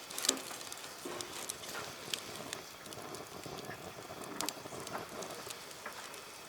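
Irregular light clicks and taps, a few every second, over a soft steady hiss.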